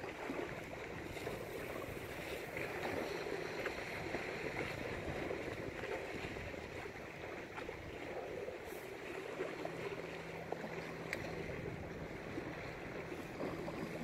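Steady wash of small sea waves at the shoreline, with a faint low hum for a few seconds in the second half.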